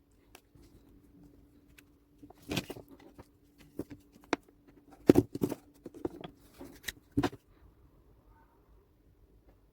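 Irregular clicks, taps and knocks from hands handling a plastic remote control case during repair, the loudest a few seconds apart, over a faint steady hum.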